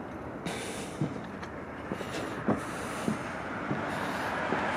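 Footsteps on a barge's steel deck, soft thumps about every half second to second, over a steady rushing background noise that grows a little louder near the end.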